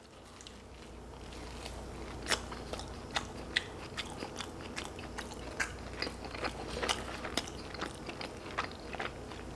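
A person biting into and chewing a piece of pepperoni pizza crust close to the microphone: many small, irregular mouth clicks.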